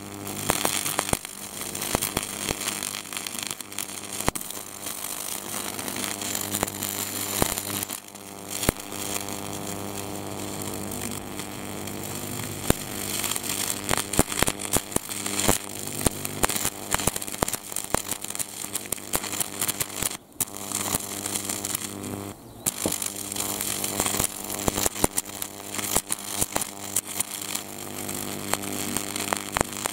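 Portazap 4400 high-voltage wasp zapper arcing through a paper wasp nest: a steady electrical hum under dense, irregular crackling and snapping of sparks as the nest burns. The arc drops out briefly twice, about twenty and twenty-two seconds in.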